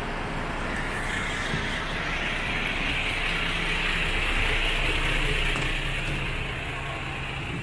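MAN TGX 26.440's common-rail diesel engine idling with a steady mechanical clatter, growing louder around the middle and easing off toward the end.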